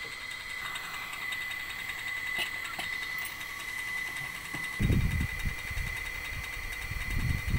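Low rumbling knocks and handling noise from the plastic outer tub of a front-loading washing machine being tipped onto its end on paving, loudest about five seconds in and again near the end, over a steady high whine.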